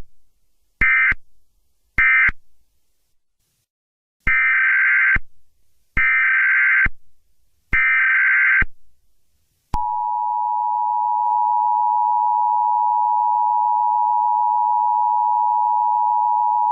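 Emergency Alert System tones between two alerts. First come three short screeching SAME data bursts, the end-of-message code, with the first just ending. After a pause come three longer SAME header bursts, about a second each. About ten seconds in, the steady two-tone EAS attention signal starts and holds.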